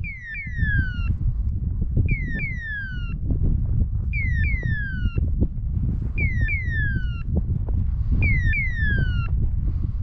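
Beeper collar on a pointing dog in point mode: pairs of falling electronic chirps repeating about every two seconds, signalling that the dog is holding point.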